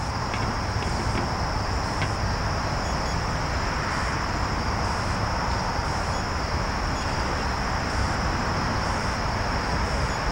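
Steady outdoor background hiss with an even, high drone of crickets, and a few faint clicks and scrapes of a Zippo lighter being struck without lighting the stove.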